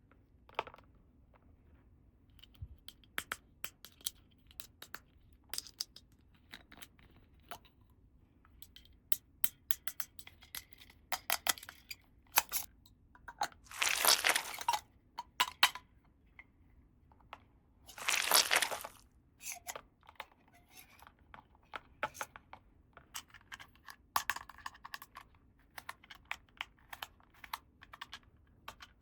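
Hands unpacking a plastic toy playset: scattered light clicks and taps of plastic pieces and packaging, with two tearing rips of about a second each, one about halfway through and another a few seconds later.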